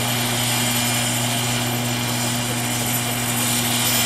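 Turbine-powered radio-controlled scale model Agusta A109 helicopter lifting into a low hover: the rotor's steady low hum with a thin, high, constant turbine whine above it.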